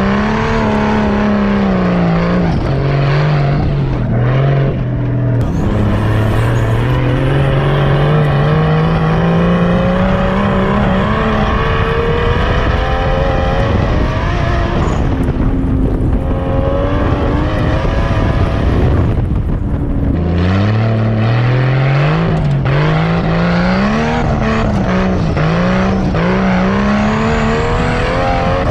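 Nissan 240SX's turbocharged RB20DET inline-six revving hard while the car is driven on dirt, over a steady rushing noise. Its pitch climbs through one long pull, and near the end it rises and falls quickly under on-off throttle.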